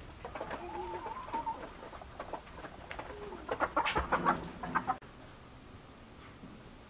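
A flock of chickens clucking and calling, with a louder flurry of clucks about three and a half seconds in. The sound cuts off abruptly at about five seconds, leaving a faint steady room hum.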